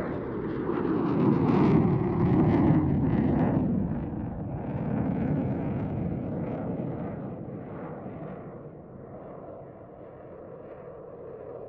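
Jet noise from a Eurofighter Typhoon's twin Eurojet EJ200 turbofans as it flies overhead: a loud rumble that drops in pitch over the first few seconds, then fades away as the jet moves off.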